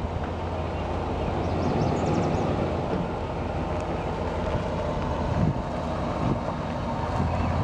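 A 1995 Chevrolet K1500 pickup's engine running with a steady low hum, with wind on the microphone.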